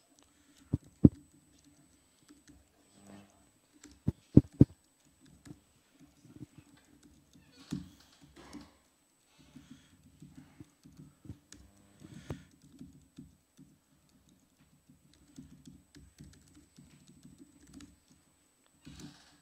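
Laptop keyboard typing: irregular key clicks and taps, with a few sharper, louder knocks about a second in and a quick cluster of three around four seconds in.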